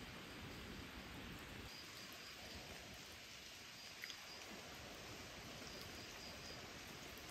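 Faint outdoor ambience: a soft, steady hiss with faint high-pitched chirps coming in short runs. A low rumble stops about a second and a half in.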